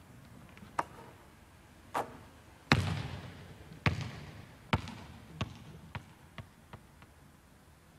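Basketball bouncing on a hardwood gym floor, each bounce echoing through the large hall. There are two spaced bounces and a loud hit, then the bounces come quicker and softer as the ball bounces itself out to rest.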